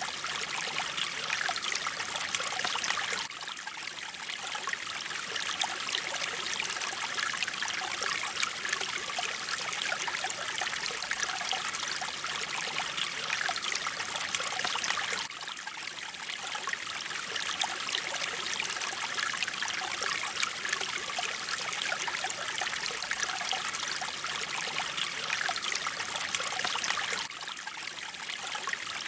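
Mountain stream running steadily, a continuous rush of water that dips slightly in level three times, about every twelve seconds.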